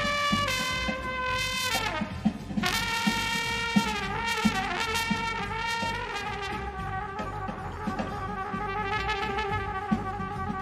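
Solo trumpet playing long held notes over a band accompaniment with a steady beat underneath; the pitch bends downward about two seconds in, and a single note is held through the second half.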